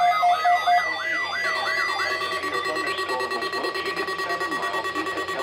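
Electronic emergency-alert siren: rapid rising-and-falling pitch sweeps, about three a second, that die away about two seconds in, leaving a steady high alert tone sounding on its own.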